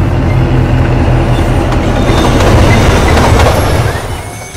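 Train sound effect: a rumbling rush along the rails, swelling about two to three seconds in, then fading near the end.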